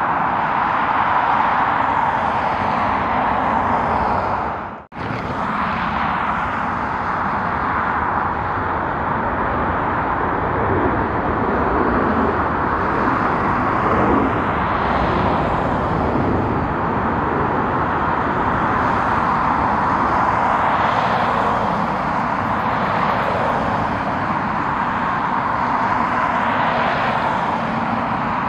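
Jet airliner engines running, a steady loud rush of noise with a brief sudden cut about five seconds in.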